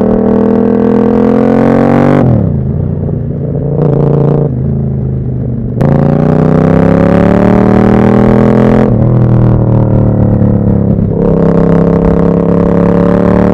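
Moto Morini Corsaro 1200 Veloce's V-twin engine on a Termignoni exhaust, accelerating through the gears: the pitch climbs steadily in each gear and drops sharply at each upshift. After the first shift the engine runs quieter and lower for a few seconds, then the throttle snaps open about six seconds in and it pulls hard again through two more shifts.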